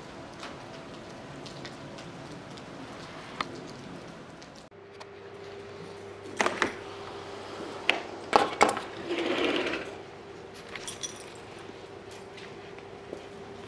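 Heavy wet snow falling with a steady pattering hiss. About five seconds in, this gives way to a steady low hum with a handful of sharp knocks and clatters and a brief rustle.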